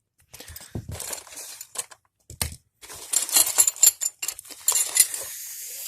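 Small metal parts clinking and rattling as they are handled, with a denser stretch of jingling and clatter about three seconds in.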